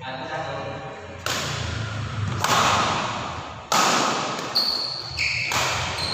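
Badminton rally: four racket hits on the shuttlecock about a second apart, each a sharp smack that rings on in a reverberant hall. Short high squeaks of shoes on the court floor come in the second half.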